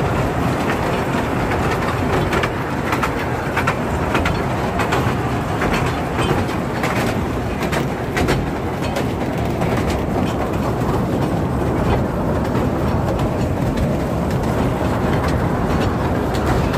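Steady, loud rumble of a small passenger ferry launch's diesel engine running underway, with wind gusting on the microphone.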